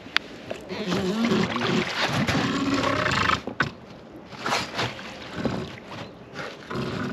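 A large wels catfish thrashing and splashing against the side of an inflatable boat as an angler grabs for it by hand, with his strained grunts mixed in. The heavy splashing stops about three and a half seconds in. Shorter splashes and brief vocal sounds follow.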